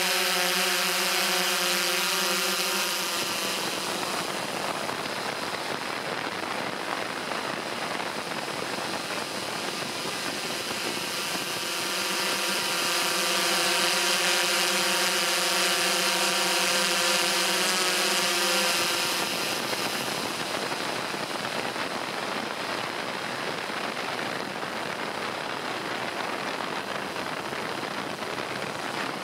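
DJI S1000 octocopter's eight motors and propellers droning steadily in flight, heard close from the camera it carries. A stack of rotor tones stands out at the start and again from about a third of the way in to about two-thirds, where the sound is loudest, with an even rushing airflow in between and near the end.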